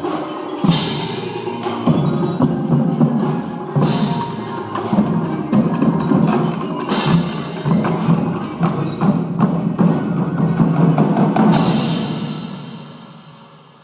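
Indoor drumline and front ensemble playing together: rapid drum strokes and bass drum hits over ringing mallet-percussion chords, with four cymbal crashes. The ensemble stops near the end and the sound rings away.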